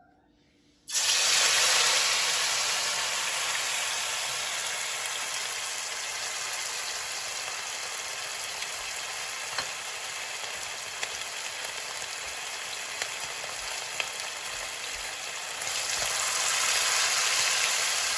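Masala-coated beef pieces frying in hot oil: a loud sizzle that starts suddenly about a second in as the beef goes into the oil, eases slightly, then swells again near the end, with a few small pops.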